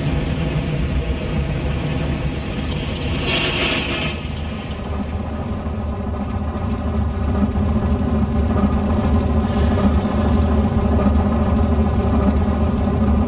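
Diesel switcher locomotive's engine running as it rolls past, getting louder over the second half, with a short hiss about three and a half seconds in.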